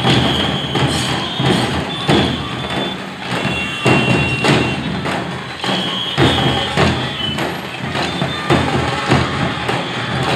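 Procession drums beating heavy, uneven thuds over a steady din, with short high-pitched notes sounding now and then.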